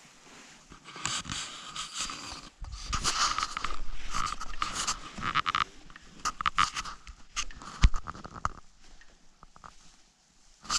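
Footsteps and rustling handling noise from a handheld camera as the person filming walks, with scattered clicks and a sharp knock about eight seconds in.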